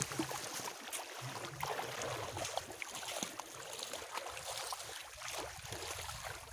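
Water splashing and running off a large stingray as it is turned over by hand in shallow water, over a steady rushing noise.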